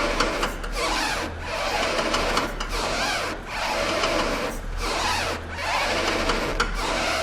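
BMW steering rack squeaking and grating as the steering is worked back and forth, in repeated strokes that swell and fade. It is the rack noise under diagnosis, a sign of a faulty steering rack.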